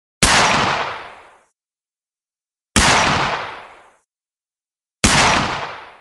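Three single gunshots about two and a half seconds apart, each a sharp crack with a long echoing tail that fades away over about a second.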